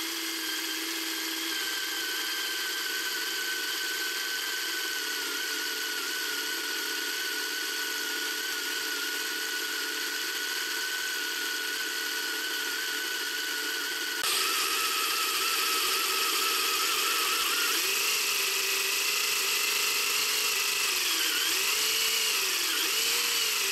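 The small electric motor of a 3D-printed V8 engine model running, driving its plastic crank, pistons and belt pulleys with a steady high whine. A little over halfway through the pitch steps up, and in the last few seconds it swings up and down repeatedly as the speed changes.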